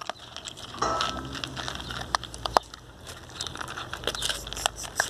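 Pinscher puppies crunching dry kibble and pushing it around a plastic bowl: a stream of irregular small crunches, clicks and scrapes.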